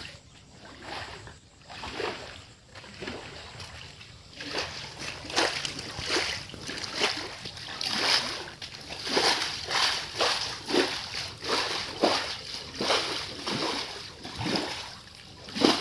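Long-handled scrub brush pushed in repeated strokes through shallow water across the floor of a tarpaulin-lined tank, each stroke splashing. The strokes start about four seconds in and come about one and a half a second.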